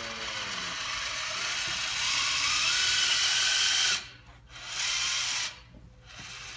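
Electric motors on an FRC competition robot running in two bursts. The first builds over about four seconds with a rising whine, then cuts off suddenly; a second, shorter burst follows about a second later.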